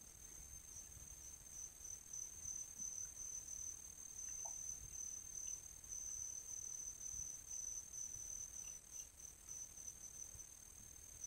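Insects trilling steadily at a high pitch, faint, over a low uneven rumble.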